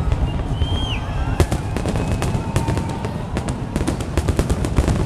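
Fireworks display: continuous deep booming of shell bursts with rapid sharp cracks, thickening into a dense crackling volley near the end. A short whistle rises and falls about a second in.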